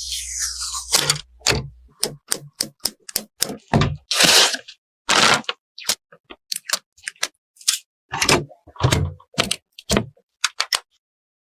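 A short falling whoosh, then a rapid series of sharp clicks, knocks and brief scrapes from computer hardware being handled and fitted together.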